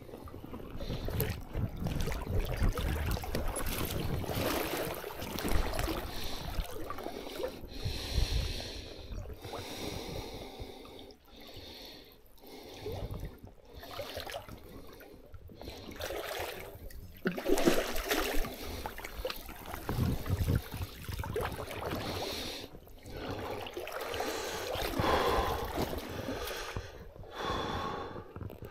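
A person breathing hard in irregular gasps, with water trickling and splashing and a low rumble of wind or handling noise.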